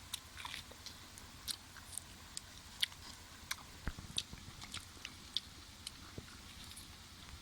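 A person eating: chewing and biting food, with small irregular crunchy clicks several times a second.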